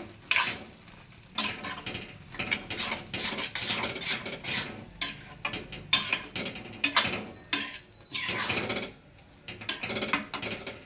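A spoon stirring amla pieces in thick jaggery syrup in a cooking pan, scraping against the pan in uneven strokes.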